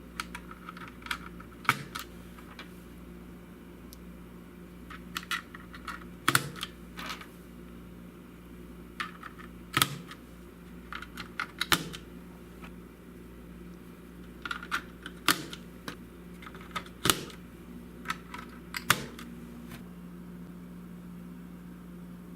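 Sharp plastic clicks from a GMMK TKL hot-swappable mechanical keyboard, coming a few at a time in short clusters with pauses between, over a steady low hum.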